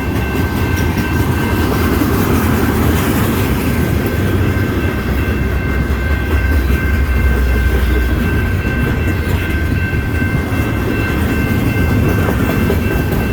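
Freight train cars rolling past at close range: a steady rumble of steel wheels on the rails, with a faint, steady high-pitched ring held over it.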